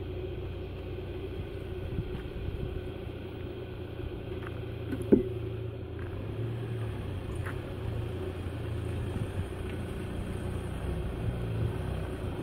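Motorhome engine running at low revs with a steady low rumble as the vehicle creeps forward and turns at walking pace. A single short knock sounds about five seconds in.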